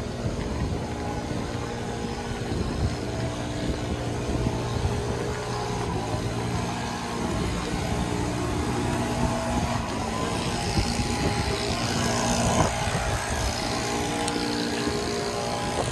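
A small engine running steadily with an even hum.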